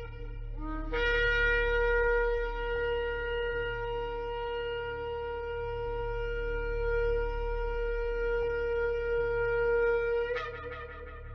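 Shofar sounding one long, steady blast of about nine seconds, opening with a brief lower note and ending with a short upward break in pitch.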